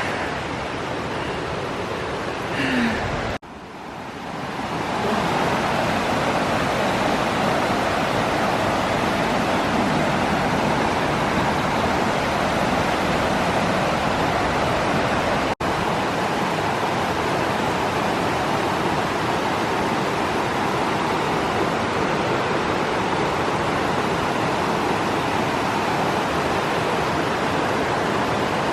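Steady rushing of creek water over rocks, an even, unbroken noise, with a brief drop about three seconds in.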